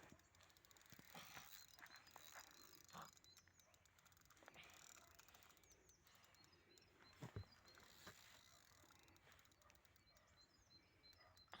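Near silence: faint outdoor ambience with a run of faint, short high chirps repeating throughout and a few soft knocks, the clearest about seven seconds in.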